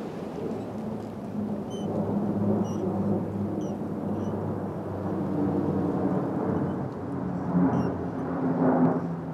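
A steady low rumble that slowly builds in level, with faint short high chirps scattered over it.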